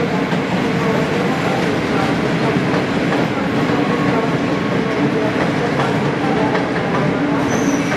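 Passenger coaches being set into the platform by an EP07 electric locomotive, rolling slowly: a steady rumble of steel wheels on rail with light clicks over the rail joints. A brief high tone sounds near the end.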